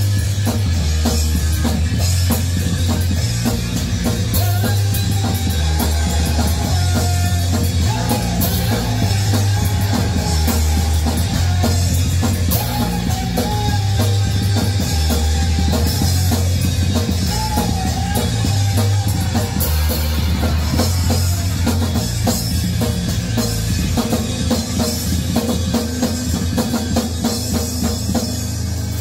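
Rock band playing live and loud: bass guitar, electric guitar and drum kit, with the guitarist singing over it through the middle.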